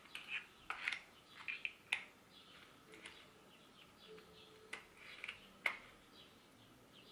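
Faint clicks and rustles of plastic parts being handled as the angle attachment is fitted and locked onto a Parkside PAS 4 A1 cordless screwdriver, with a few sharper clicks.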